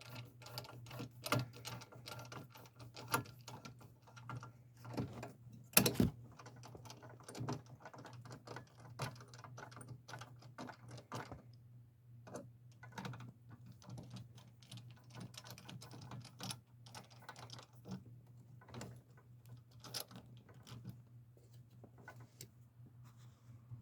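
Irregular small clicks, taps and scrapes of hand work with a screwdriver and screws as a GFCI receptacle is fastened into its electrical box, with a louder clatter about six seconds in. A faint steady low hum runs underneath.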